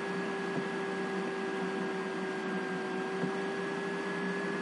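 Steady background noise: an even hiss with a constant hum made of a few steady tones, unchanging throughout.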